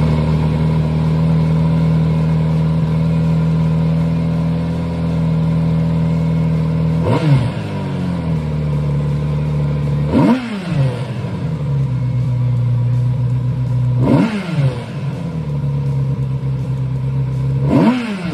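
Kawasaki Z900RS inline-four engine with a Moriwaki Monaka aftermarket muffler, idling steadily just after start-up. About seven seconds in it is revved in the first of four short throttle blips, each rising and falling back in pitch. The last blip reaches about 6,000 rpm.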